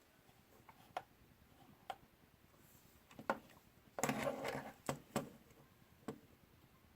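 Small clicks and taps of handling small parts and tools, roughly one every second, with a short scraping rustle about four seconds in.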